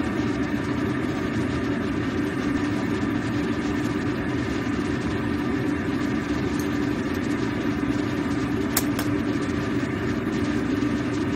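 A steady mechanical hum and rush from the stove as a wok of soup heats on a gas burner. About nine seconds in come two light clicks as the pepper shaker is handled.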